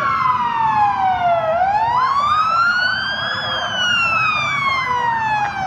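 Police vehicle siren on a slow wail: the pitch falls, climbs back up over about two seconds, then falls again. Through the middle a second siren runs underneath with a quicker repeating rise.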